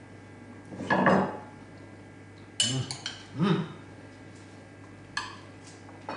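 Cutlery clinking and knocking against dishes as salad is spooned into a bowl and chicken is carved on a board: a scattering of short clinks and knocks, the sharpest about two and a half seconds in.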